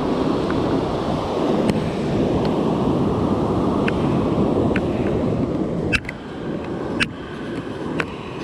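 Surf breaking and washing up the beach, with wind buffeting the microphone. About six seconds in the sound drops away, and a few sharp clicks follow.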